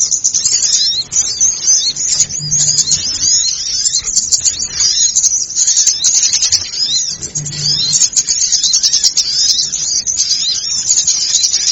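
A dense chorus of many small birds chirping and twittering at high pitch, with calls overlapping without a break. It is the kind of busy small-bird lure call played to draw in small birds.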